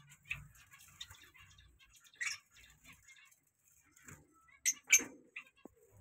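Small cage finches giving short, scattered chirps and clicks, with a few louder sharp ones about two seconds in and twice near five seconds.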